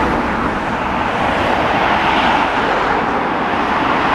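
Steady road traffic noise from cars on a busy road, an even wash of tyre and engine sound.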